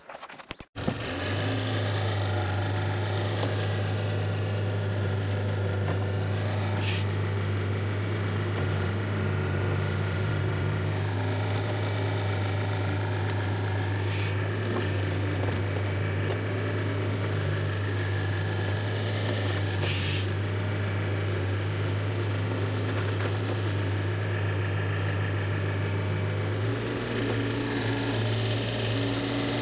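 Diesel engine of a Neuson 6003 mini excavator starting about a second in, then running at a steady speed. It makes three short hisses several seconds apart, and its note shifts slightly near the end.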